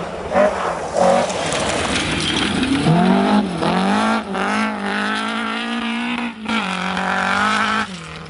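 A historic rally car's engine revving hard as it passes at speed on a gravel stage. The pitch climbs and falls back several times as the driver lifts off and changes gear, with a couple of sharp cracks near the start. The sound drops away suddenly near the end as the car goes out of view.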